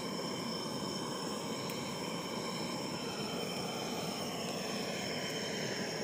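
Steady night-time ambience: a constant rushing noise with continuous high insect trilling on top, unbroken throughout.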